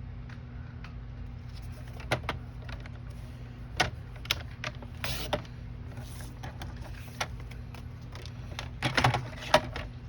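Watercolor paper being cut down to size on a paper trimmer: scattered clicks and knocks of the paper and trimmer being handled, a short swish of the cut about five seconds in, and a cluster of knocks near the end, over a steady low hum.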